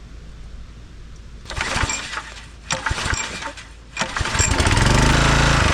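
Small gas engine of an old Huskee log splitter being pull-started on a freshly fitted spark plug: a couple of pulls that don't catch, then it fires and runs up to speed near the end.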